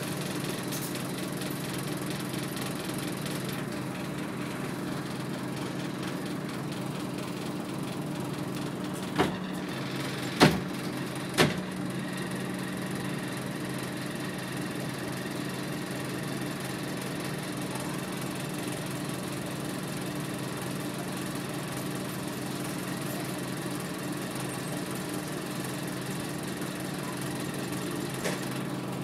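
Scania OmniDekka double-decker bus's diesel engine running at a steady hum, heard from inside the passenger saloon. About nine to eleven seconds in come three sharp knocks a second or so apart, and a fainter one near the end.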